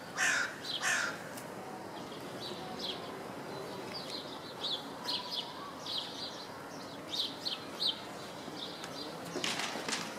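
A crow cawing twice with harsh calls, then small birds chirping in short high notes for several seconds, and a brief rushing noise near the end.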